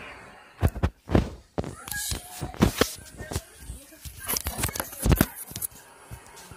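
Handheld phone being jostled: irregular knocks, bumps and rubbing against the microphone, with a few brief bits of voice.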